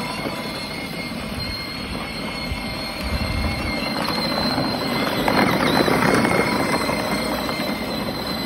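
A 12V battery-powered ride-on toy car driving over rough, wet asphalt: a thin, steady electric-motor whine over the crackly rattle of its hard plastic wheels. It gets louder through the middle as the car comes close.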